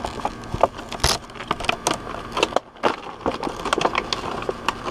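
Plastic product packaging being handled and worked open: a run of irregular clicks and crackles.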